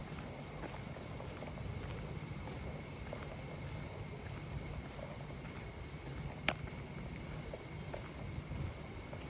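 Steady high-pitched insect chorus over a low rumble of wind and movement on the microphone, with faint footsteps on asphalt. A single sharp click about six and a half seconds in.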